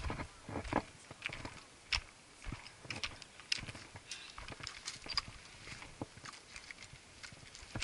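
Footsteps on a trail of loose, flat broken stones: irregular crunches and clinks of shifting rock, two or three steps a second.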